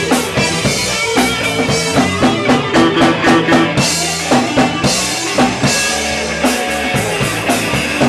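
Live band playing an electric guitar solo over a drum kit and a second electric guitar, with a steady beat of drum hits.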